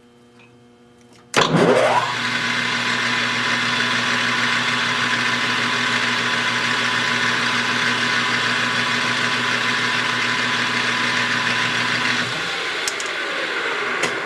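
Metal lathe's electric spindle motor switched on about a second in: it spins up with a quick rising whine, then runs steadily with a hum and a whine, as a chamfer is put on the part. Near the end the motor is switched off and the spindle coasts down with a falling whine.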